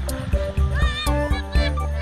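Background music with a steady beat and held bass notes, with quick sliding high notes about a second in.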